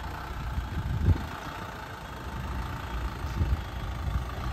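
Truck's diesel engine idling with a steady low rumble and a couple of brief swells.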